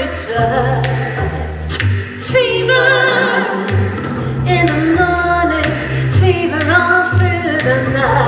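Music with several voices singing, their held notes wavering with vibrato, over a bass line and drum hits.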